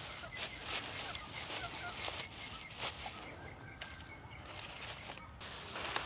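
Chickens clucking now and then, with the crackling rustle of cut grass being handled.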